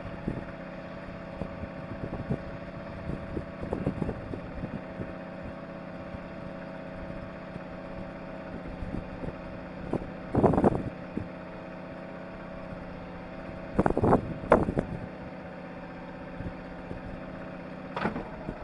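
An engine idling with a steady, even hum, with a few short knocks and clatters on deck: one about ten seconds in, two close together around fourteen seconds, and one near the end.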